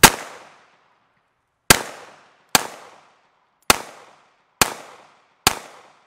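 Six shots from a 9 mm subcompact pistol, each a sharp crack with a short echo. The first comes right at the start and the other five follow in a steady string, about a second apart.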